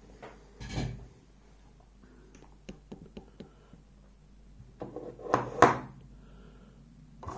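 Small clicks and knocks of a dimple lock cylinder and tools being handled. A knock comes just under a second in, light ticks follow, then a louder clatter with one sharp click about five and a half seconds in.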